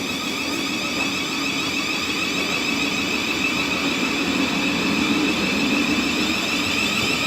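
Electric train running at the platform, a steady high whine over a low hum, slowly growing louder.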